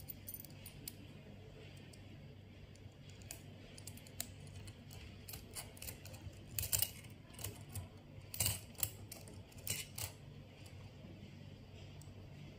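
Small hard parts clicking and clacking as a pen-holder bracket and its thumbscrew are handled and fitted onto a pen plotter's carriage: scattered light ticks, with a run of louder clacks in the middle stretch.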